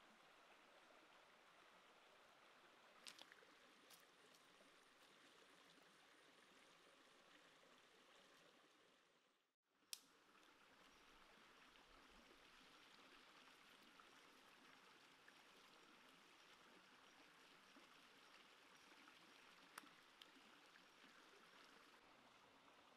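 Near silence holding the faint, steady rush of a shallow rocky stream, with a few light clicks. The sound fades out completely just before the midpoint and comes back at once.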